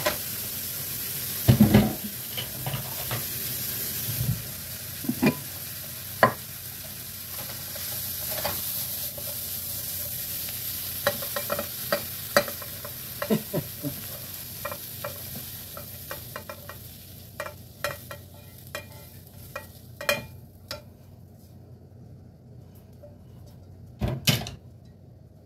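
Steak, mushroom and spinach stir-fry sizzling in a frying pan while a silicone spatula scrapes and knocks against the pan, with a loud knock about a second and a half in. The sizzle dies away about two-thirds of the way through, leaving scattered scrapes and clinks and another knock near the end as the food is scraped into a bowl.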